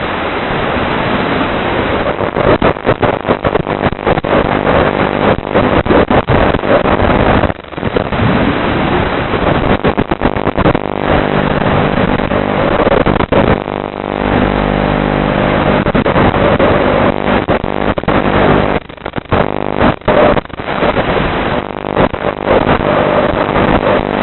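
Racing drone motors and propellers whining in flight, a dense buzzing with a steady pitched hum, broken by many brief sudden dropouts.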